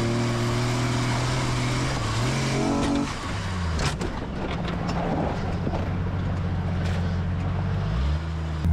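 1992 Jeep Cherokee's engine running under throttle. Its pitch climbs and then drops about three seconds in, a sharp knock comes about a second later, and the pitch climbs again near the end.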